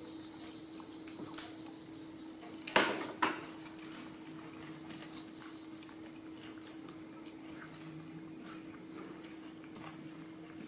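Small clicks and taps of baby macaques eating jackfruit and handling the pieces on a metal tabletop, with two sharp knocks close together about three seconds in. A steady low hum runs underneath.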